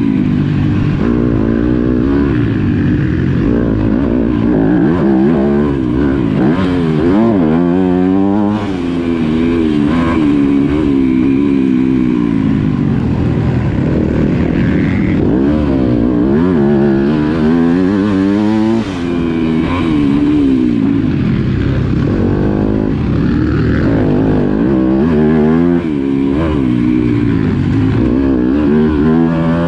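Yamaha motocross bike's engine revving hard and backing off again and again under racing. Its pitch climbs and drops every second or two, with short dips where the throttle is shut.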